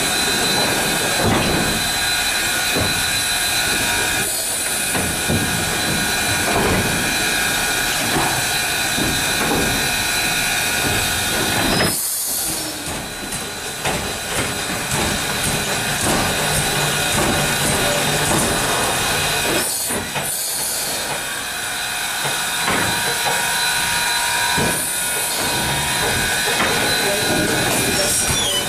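Steady hiss of steam from 2-8-0 steam locomotive No. 630, heard from its cab, with several steady high tones over it. The sound briefly drops out about 12 and 20 seconds in.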